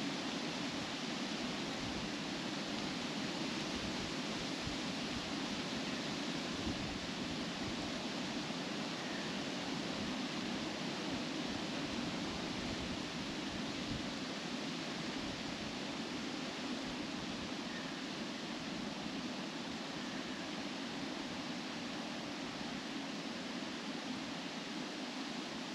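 Wind blowing steadily through trees, the leaves rustling in an even, unbroken rush.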